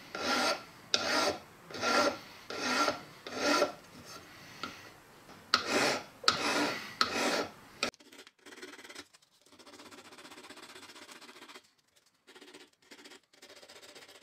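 Hand file rasping across a bottle jack's metal end cap in a run of regular strokes, one to two a second, filing out blemishes. About halfway it gives way to quieter, steadier rubbing of abrasive paper on the cap.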